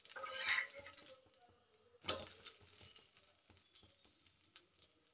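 Steel spatula scraping under a moringa-leaf dosa on a cast-iron tawa and flipping it: a short scrape at the start, then a single sharp knock about two seconds in as it turns, followed by faint light clicks.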